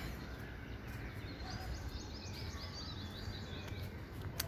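Steady background hiss with a bird chirping in a quick series of short calls in the middle, and one sharp click just before the end.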